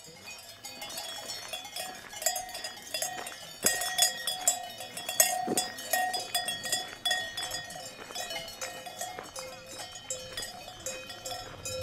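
Bells on grazing cows clanking irregularly, several bells ringing at different pitches, loudest from about three and a half to five and a half seconds in.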